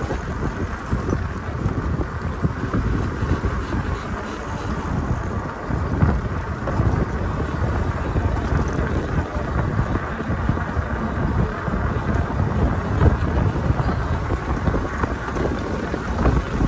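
Steady low rumble of wind buffeting the microphone and a bicycle rolling along a path during a ride.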